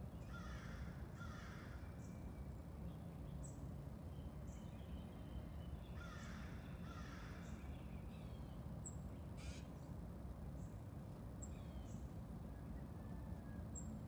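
Crow cawing, two harsh caws near the start and two more about six seconds in. Faint short high chips from small birds and a steady low background rumble lie beneath.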